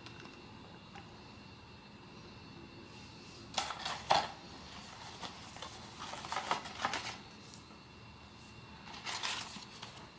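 Rustling and crackling of blind-box packaging being handled and opened, in three short bursts, the first the loudest.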